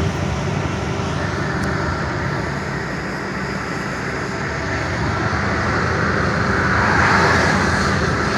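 Truck driving on the highway: steady engine and road noise, with a louder hiss swelling about seven seconds in.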